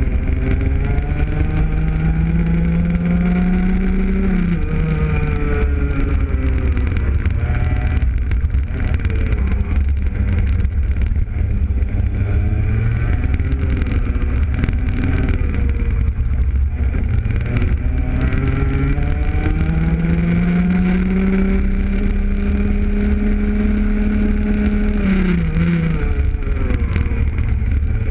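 Rotax Max Junior kart's 125 cc two-stroke single-cylinder engine at race pace, heard onboard: its pitch climbs as it pulls, then drops sharply as the driver lifts about four seconds in. It runs lower through the middle, climbs on a second long pull from about twenty seconds in, and drops off again near the end, over a heavy low rumble.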